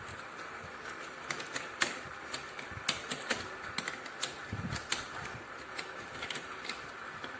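A run of irregular light clicks and taps over a steady background hiss, with a soft low thud about four and a half seconds in.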